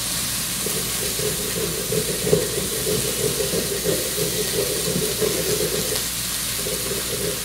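Salmon nuggets sizzling steadily in a hot frying pan with a little oil and bacon grease. A brief knock a little over two seconds in.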